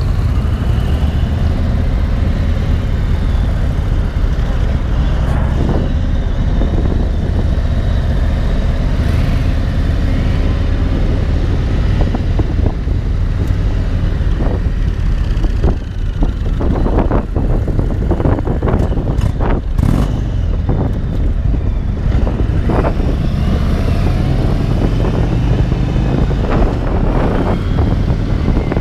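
Indian Thunderstroke 116 air-cooled V-twin of a Springfield Dark Horse cruiser running under way, its pitch rising and falling with the throttle. Wind noise on the microphone comes in gusts through the middle.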